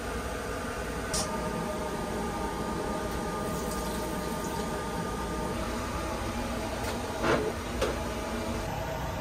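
Steady running noise of the Sunrise Express sleeper train, heard inside its small toilet compartment. Partway through, water runs briefly from the sensor tap into the sink. Near the end come two plastic clunks as the fold-down baby seat and its chest guard are handled; these are the loudest sounds.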